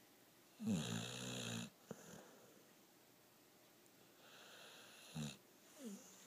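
Pit bull snoring in its sleep: a long, loud rattling snore about a second in, then a quieter, longer one around four to five seconds in, with a short gliding note near the end.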